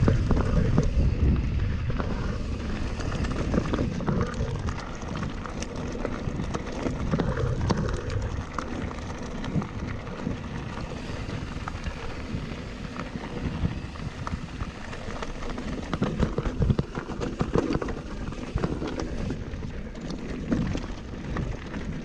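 Nukeproof Mega 297 mountain bike rolling over loose rocky gravel: tyres crunching and the bike rattling and clicking over the stones, with low wind rumble on the microphone. It is roughest near the start and again about two-thirds through.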